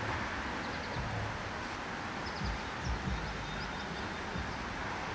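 Steady rush of a creek running high after a week of rain, with a few faint high chirps and some low bumps a little after two seconds in.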